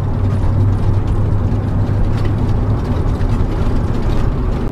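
Motorhome driving at road speed, heard from inside the cab: a steady low engine and road drone, with light clicking and rattling from the cabin.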